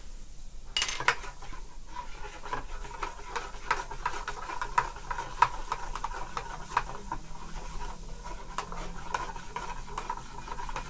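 Long metal spoon stirring grape syrup, lime juice and soda water in a plastic measuring jug, clinking and scraping against the jug's sides in many short, irregular clicks.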